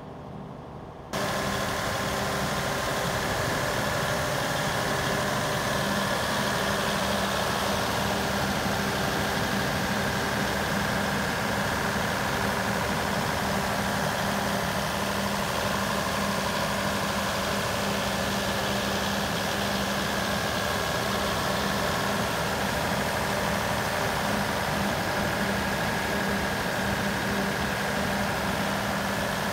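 Cummins 400 kVA diesel generator set's engine running at a steady speed on test, a constant drone with a steady hum over it. The sound comes in abruptly about a second in and then holds unchanged.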